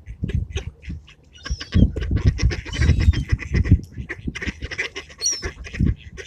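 Birds squawking, with repeated low thumps and rustling.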